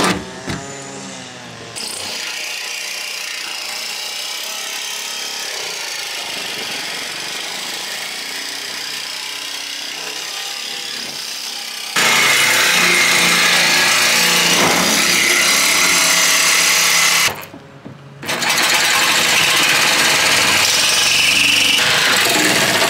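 Power saw cutting through the van's sheet-metal roof to open the hole for a roof fan, running in long steady cuts. It gets louder about halfway through, stops for about a second later on, then cuts again.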